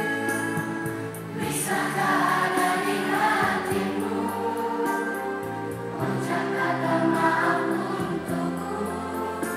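A children's choir singing together in unison over instrumental accompaniment with held chords. The voices grow louder about a second and a half in.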